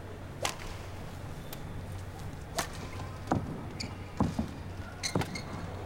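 Badminton rally: a shuttlecock struck by rackets with sharp hits every second or two, and short squeaks of shoes on the court in between, over a low steady hum.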